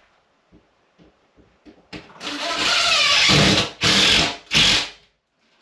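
Cordless drill driving screws into drywall: a few light knocks, then one long run of the motor with a wavering pitch, followed by two short bursts.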